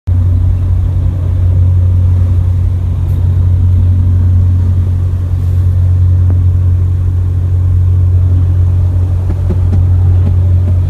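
Steady, loud low rumble of a car on the road, with no change in pitch.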